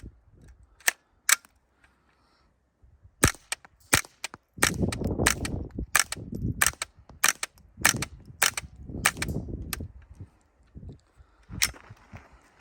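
Suppressed .22LR AR carbine with a .22 conversion kit, firing a string of Winchester Super Suppressed subsonic rounds through a Little Spoon silencer: a dozen or more sharp, short shots at an uneven pace, thickest in the middle. Each shot is a quiet pop in which the bolt cycling is louder than the round. Wind rumbles on the microphone from about a third of the way in.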